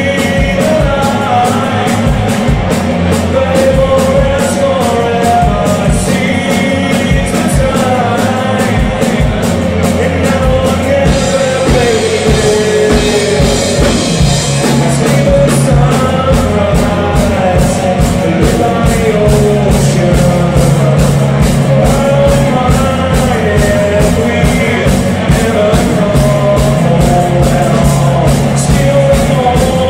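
Live rock band playing a song, with a steady drum beat under a sung melody.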